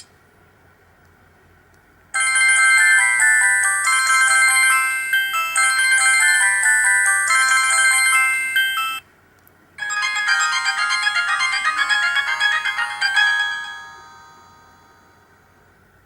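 Samsung SGH-C417 ringtone melodies played on a Sony Ericsson J210i mobile phone: electronic tunes of clear stepped notes, several at once. They start about two seconds in, break off for under a second near the middle, resume, and fade out a couple of seconds before the end.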